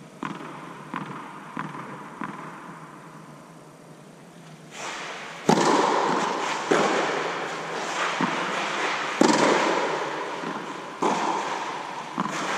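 Tennis ball bounced four times on a clay court, then a serve and a rally: sharp racket strikes every one to two seconds, each trailing off in a long echo under the inflated tennis dome.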